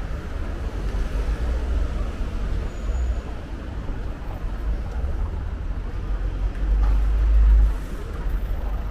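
City street traffic: a steady low rumble of cars in a narrow street, swelling louder for about a second shortly before the end.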